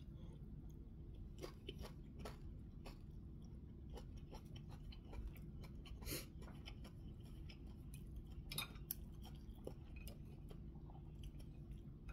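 A person chewing a mouthful of food with soft, scattered wet mouth clicks, over a steady low hum.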